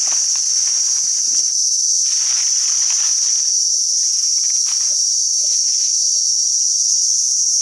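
Steady, high-pitched chorus of forest insects buzzing without a break, with irregular rustling underneath.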